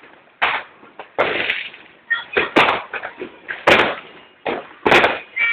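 New Year firecrackers and fireworks going off: about five separate loud bangs, a second or so apart, each trailing off in an echo.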